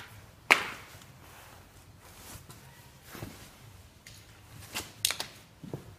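Handling noise: one sharp knock about half a second in, then a few soft clicks and rustles.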